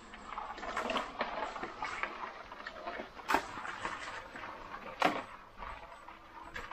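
Crabs being sorted by hand in a plastic basin of shallow water: water sloshing and shells clicking and scraping against one another and the plastic, with two sharper knocks about three and a half and five seconds in.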